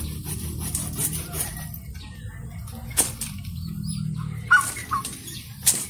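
Leafy Madre de Agua branches rustling as they are broken off for cuttings, with several sharp cracks over a steady low rumble.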